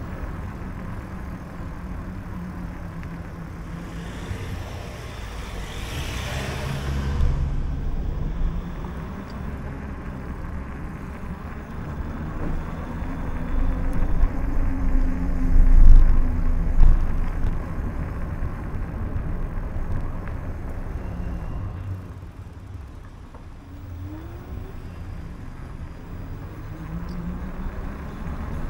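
City street traffic heard from a moving bicycle: car engines running and passing, under a heavy low rumble of wind on the microphone that swells about halfway through. A brief hiss sounds about five seconds in.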